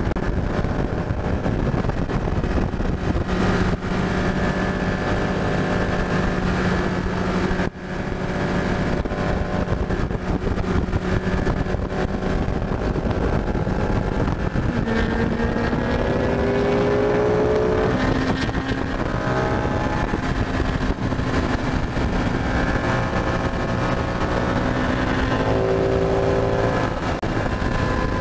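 Ducati 899 Panigale's L-twin engine running at highway speed under a steady rush of wind, its pitch rising as it accelerates around the middle and again near the end.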